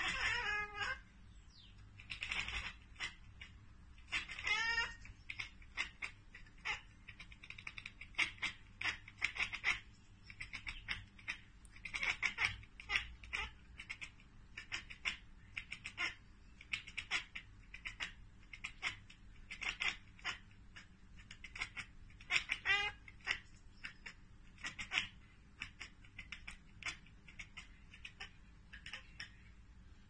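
Domestic cat chattering: quick runs of short clicking 'ek-ek-ek' sounds, the excited chatter a cat makes on spotting birds or insects, mixed with a few wavering chirping calls.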